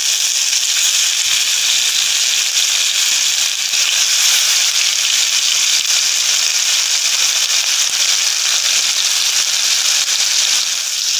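Masala-coated Indian mackerel frying in hot oil on a tawa: a loud, steady sizzle with fine crackling.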